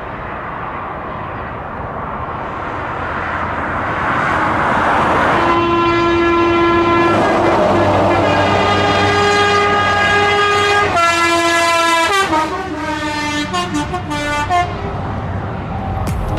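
Scania tipper truck approaching with its engine and tyres growing louder, then sounding its multi-tone air horns, a loud chord held for several seconds from about five seconds in. The horn chord steps down in pitch as the truck passes beneath, and shorter horn notes follow before it moves away.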